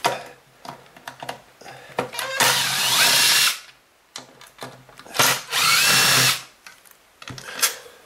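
Cordless power driver backing screws out of a Kirby vacuum's motor housing. It makes two runs of about a second each, the second starting about halfway through, and its pitch slides up as each run speeds up. Small clicks of the screws and bit come between the runs.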